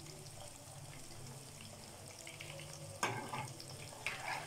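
Battered chicken pieces deep-frying in oil in a kadai on low heat, a faint steady sizzle. About three seconds in, and again about a second later, a spatula scrapes briefly through the pieces as they are stirred.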